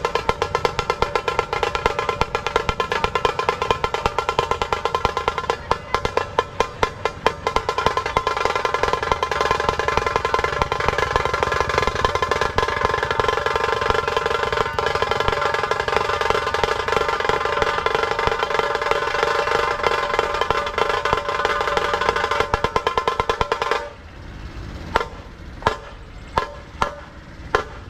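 Dhol-tasha ensemble playing: a dense, rapid roll of tasha strokes over dhol beats that stops suddenly near the end, followed by a few separate single drum strokes.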